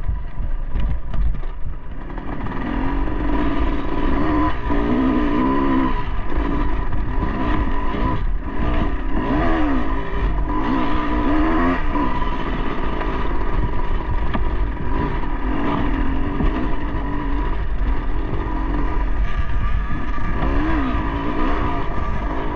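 Dirt bike engine running under a rider's throttle, its revs repeatedly rising and falling as it climbs and picks its way over rocky single-track.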